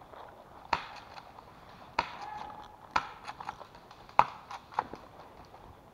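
Airsoft guns firing single shots: five sharp cracks about a second apart, with fainter clicks between them.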